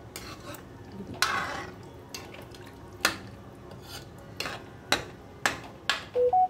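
A metal ladle stirring watery potato curry in a kadai, knocking against the pan about ten times with a short slosh a little after a second in. Near the end, a few short electronic beeps of different pitches.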